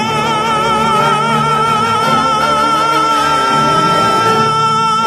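Operatic tenor holding the song's final high note on the word 'sol' at full voice, over a sustained orchestral chord. The note starts with a wide vibrato that settles into a steadier tone.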